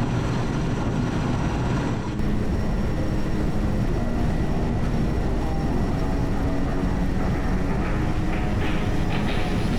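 Sikorsky Skycrane twin-turbine heavy-lift helicopter running: a loud, steady low rumble of rotor and engines with a constant whine over it.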